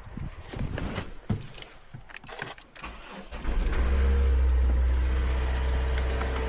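A few clicks and knocks, then about three and a half seconds in a Mazda CX-5's engine starts and settles into a steady idle. The car had failed to start that morning, and the fault is thought to lie in its key.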